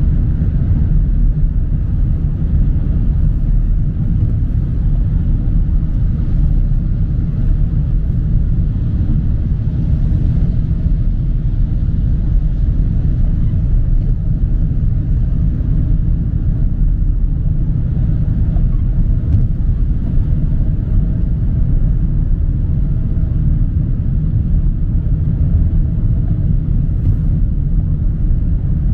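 Steady low road and engine rumble heard from inside a car's cabin while driving on a wet highway in the rain.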